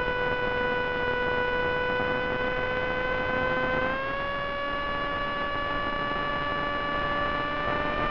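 Steady, pitched whine of the Wing Wing Z-84's brushless pusher motor and propeller over a hiss. The pitch steps up about four seconds in as the motor draws more current, and creeps up again near the end.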